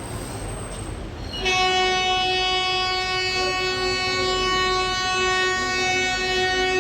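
Darjeeling Himalayan Railway toy train locomotive sounding one long, steady blast of its horn, starting about a second and a half in, over the low rumble of the train.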